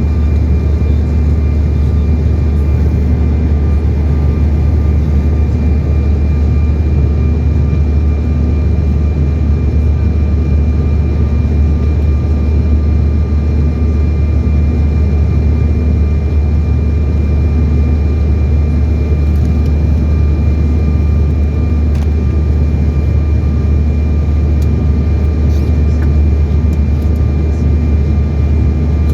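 Jet airliner noise during a landing: a steady, heavy low rumble with two faint constant high tones, holding level throughout.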